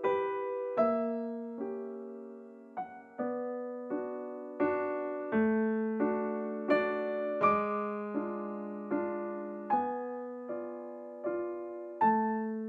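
Background piano music: slow, gentle notes and chords, each struck and left to fade, about one a second.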